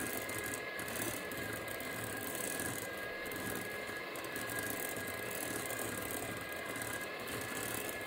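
Moulinex electric hand mixer running steadily, its beaters whisking softened butter in a glass bowl, with a constant high motor whine.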